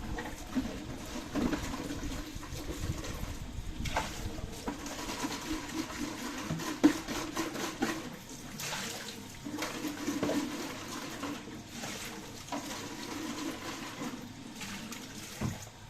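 Water running and splashing, with scattered knocks and clinks of a bottle being handled.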